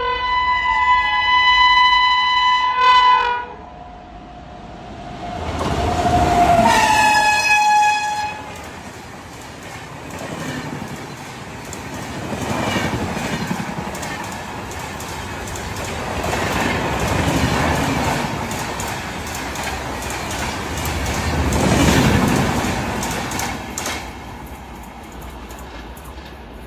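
WAP-7 electric locomotive's shrill horn, one blast of about three seconds that slides down in pitch at its end, then a second, shorter blast a few seconds later. After the horn, the train runs by with a rumble and wheel clatter that swells and fades several times.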